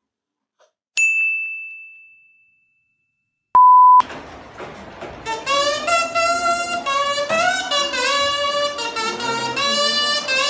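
Subscribe-button sound effect: a click and a bell-like ding that rings out and fades over about two seconds, then a loud steady beep lasting about half a second. Then a group of students starts a music performance, a melody line with bending, wavering pitch.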